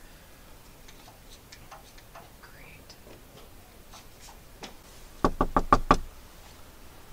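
Knuckles knocking on a front door: five quick raps in under a second, about five seconds in.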